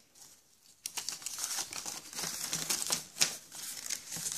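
A cut, folded sheet of paper rustling and crackling in quick irregular bursts as it is opened out and smoothed flat by hand, starting about a second in.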